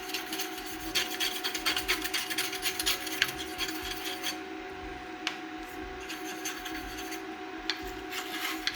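Rapid, irregular rubbing and scrubbing strokes, cleaning a surface with an isopropanol and acetone solvent mix, pausing briefly twice.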